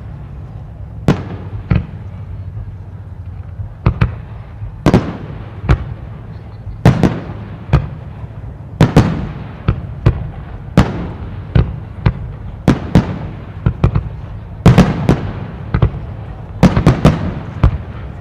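Aerial firework shells bursting in irregular succession: a couple of dozen sharp bangs, each with a short echoing tail, some coming in quick clusters of two or three, over a steady low rumble.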